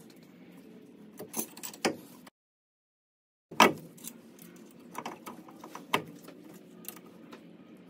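Scattered metal clicks and clunks as a Dana 44 differential carrier, its bearings and steel side shims are pushed and knocked against the axle housing while being forced into place; the loudest clunk comes just after a second-long dead gap. The carrier will not seat, which the mechanic puts down to shims that are a little too thick.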